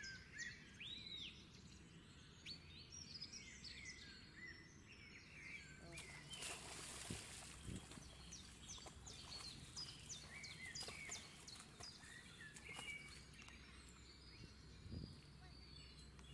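Faint, frequent short chirps of small birds over a quiet outdoor background, with a brief rush of noise about six seconds in.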